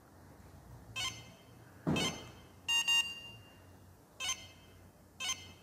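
Pandora Elite alarm pager remote beeping as it is switched off: short electronic beeps roughly a second apart, the third a double beep with a slightly longer tone. A soft thud comes with the second beep.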